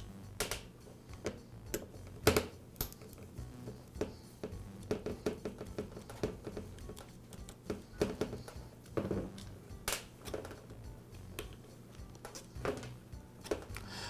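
Scattered clicks and taps of a screwdriver and small plastic parts as the screws of a drill's cord strain relief clamp are undone and the clamp and screws are lifted off and set down on a metal workbench.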